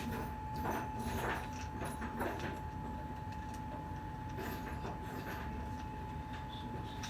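Faint clicks and scrapes of hand work on switch wiring with pliers, over a steady low hum and a constant faint high tone.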